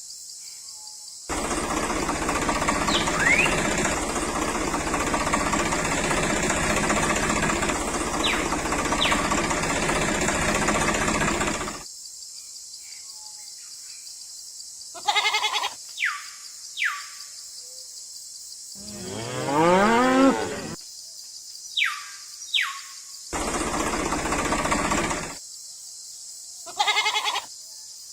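A cow moos once, a long call, about two-thirds of the way through. Before it, a loud steady noisy sound lasts about ten seconds, and short falling whistle-like sweeps come in two pairs.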